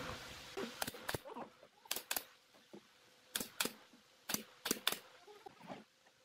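Pneumatic brad nailer firing nails into the mitred corners of a pine frame: sharp shots in quick pairs, about nine in all over some four seconds.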